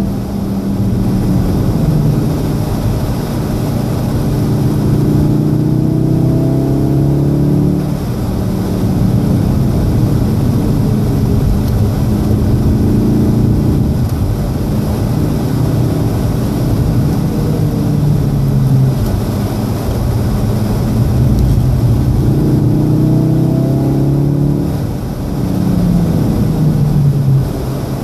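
2014 VW Golf VII R's turbocharged 2.0-litre four-cylinder heard from inside the cabin, its pitch rising and falling as it revs up and eases off through corners, over steady road noise. The engine note dips briefly about eight seconds in and again near the end as the car slows.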